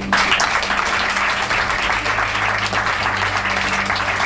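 Audience applause that breaks out suddenly and keeps up steadily: many hands clapping.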